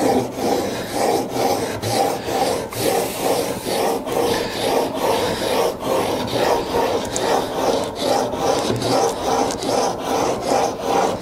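Steel chisel bevel scraping back and forth on a wet 400-grit Japanese water stone, held at a set angle in a roller honing guide, in a steady gritty rhythm of about one and a half strokes a second. This is the coarse first stage of sharpening.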